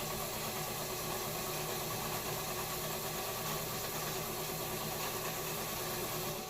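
Vintage Japanese Montgomery Ward HBC Class 15 clone sewing machine, motor-driven under knee control, running at a steady speed as it stitches a short-length seam through test fabric.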